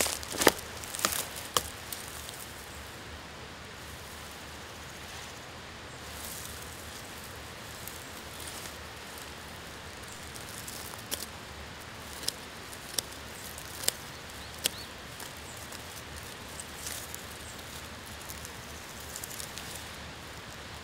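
Rustling and sharp handling clicks for the first second or two, then a steady outdoor hiss broken by a few isolated sharp clicks or snaps around the middle.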